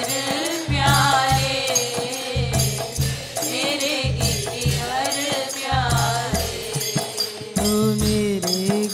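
Devotional kirtan music: a wavering melody over a steady hand-drum beat, with small cymbals or jingles striking in time.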